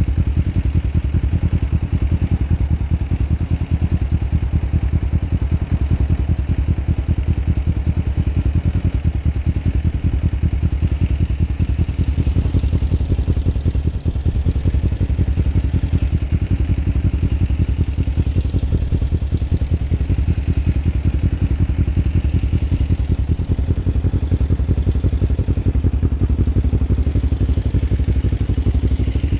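Kawasaki Ninja 500R's parallel-twin engine with a Delkevic Mini 8 slip-on muffler, running steadily as the bike is ridden at low speed through a cone weave and tight circles.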